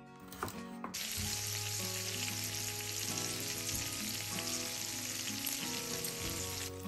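A couple of chef's knife chops through carrot onto a wooden cutting board, then from about a second in, meatballs sizzling as they fry in a pan, the sizzle stopping shortly before the end.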